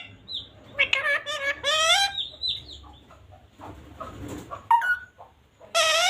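Parrot calling: a run of raspy, pitched squawks with short falling chirps in between, and another loud squawk near the end.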